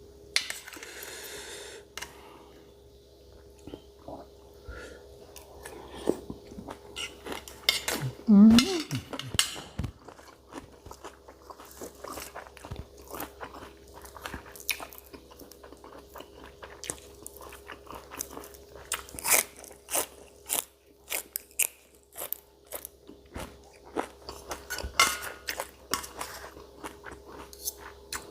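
A person chewing and biting into spicy pounded beef-foot salad, with many irregular crunching clicks.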